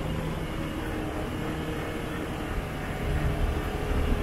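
Off-highway vehicle's engine running steadily as it rides a dirt trail, a low rumble with a steady hum that grows a little louder near the end.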